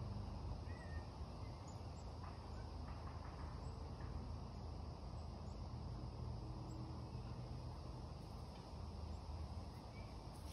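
Outdoor ambience: a steady low rumble, with faint, short, high-pitched chirps scattered irregularly through it and a softer chirp about half a second in.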